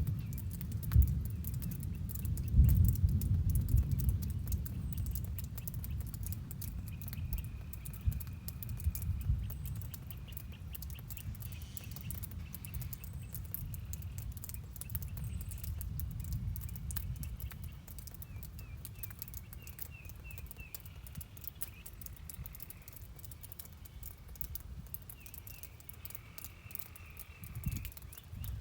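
Rain and nature ambience: a steady fine patter of rain with birds chirping now and then, in short repeated chirps and a brief held whistle. Underneath is a low rumble, strongest in the first few seconds, that fades.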